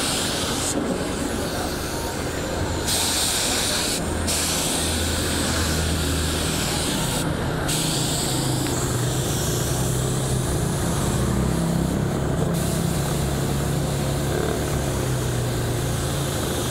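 Air-powered paint spray gun hissing as it sprays paint, in long bursts with a few brief breaks where the trigger is let go, over the low steady running of an air compressor.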